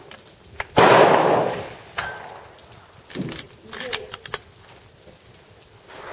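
A single rifle shot in 6.5x61 Super: one sharp report that dies away over about a second. It is followed by a few sharp clicks.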